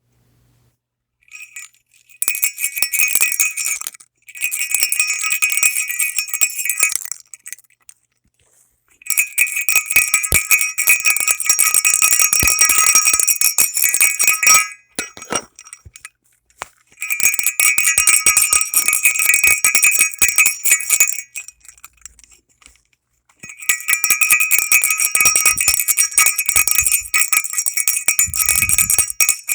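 Small bells jingling in five shaken bursts of about three to six seconds each, separated by brief pauses. Each burst is a dense run of many small strikes over a high, bright ringing.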